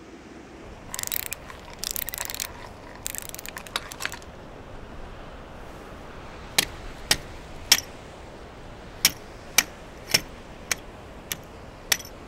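A few short rough scraping bursts, then a steady series of sharp clicks, about two a second.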